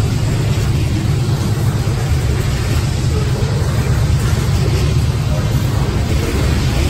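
Covered hopper cars of a freight train rolling past close by: a steady, loud rumble of steel wheels on the rails.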